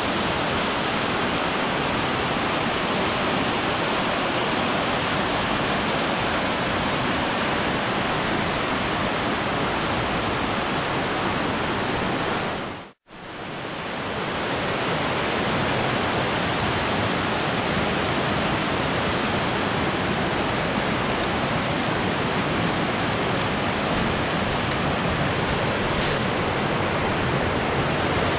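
Steady rush of water from a waterfall and a rocky river, with one sudden brief drop-out about halfway through; after it, river water runs over rapids and stones.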